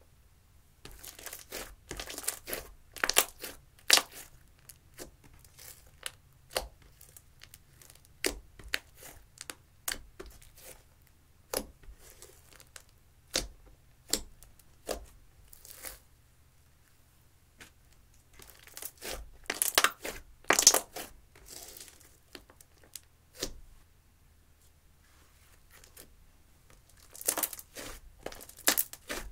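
Hands stretching, folding and pressing thick clear slime mixed with eyeshadow, making irregular sticky clicks and crackles. The sounds come in thick clusters a couple of seconds in, around twenty seconds in and near the end.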